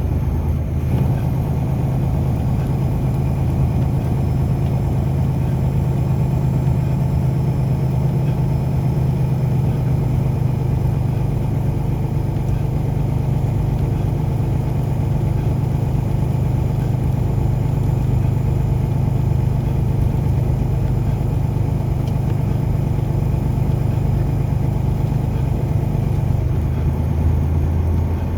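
Car driving steadily: a constant low engine and road drone, which drops a little lower in pitch near the end.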